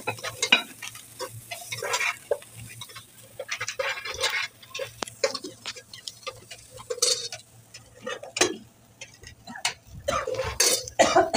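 A steel spoon stirring and scraping vegetable stuffing around a non-stick frying pan, with irregular scrapes and taps against the pan.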